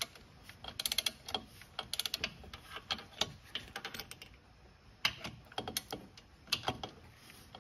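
Ratcheting torque wrench clicking in short bursts of rapid clicks, about one burst a second with a pause near the middle, as its handle swings back and forth tightening an 8 mm Allen-head bolt.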